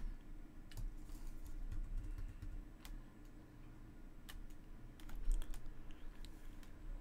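Irregular scattered clicks and taps of a computer keyboard and mouse, over a low steady hum.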